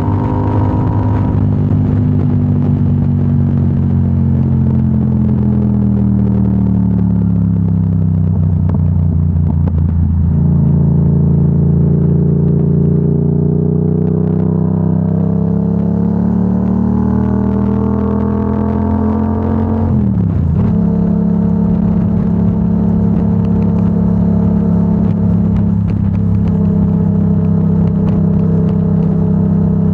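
2025 Yamaha R7's 689 cc parallel-twin engine through a Yoshimura AT2 full exhaust, heard from the rider's position. The engine note falls steadily as the bike slows, climbs slowly under acceleration, drops sharply about two-thirds of the way through at a gear change, then holds steady at a cruise.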